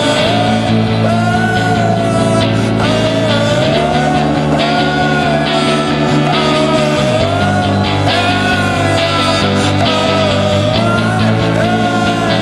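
Psychedelic rock band music: a wavering lead melody over sustained chords, the bass moving to a new note about every three and a half seconds.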